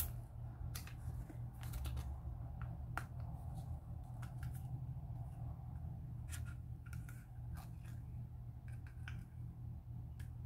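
Small scissors snipping and clicking as they cut open a small toy container's wrapping: scattered faint snips over a low, steady hum.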